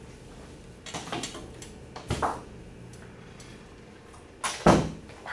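Chalk tapping on a chalkboard in a few short clicks, then one louder knock near the end.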